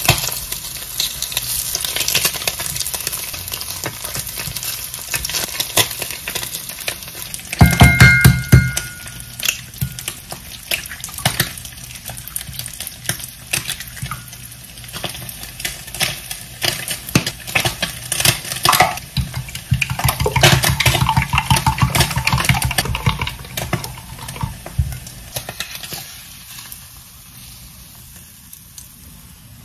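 Spam slices sizzling in a nonstick frying pan, with silicone-tipped tongs clicking as they turn the slices, then a loud knock and a short beep about eight seconds in. Quick clicks and taps of kitchen work follow as eggs are cracked into a glass measuring cup.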